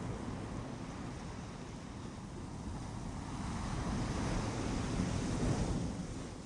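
Ocean surf on a beach: a steady wash of waves that builds to a louder surge about five seconds in, then falls away.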